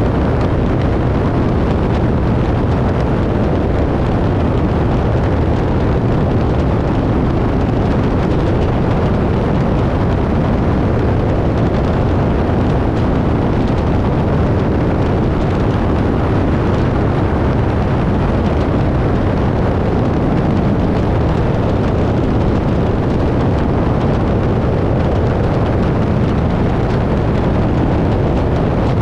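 Open-cockpit biplane in steady level flight: its engine and propeller running evenly under heavy wind rush buffeting a tail-mounted camera, with no change in pitch or power.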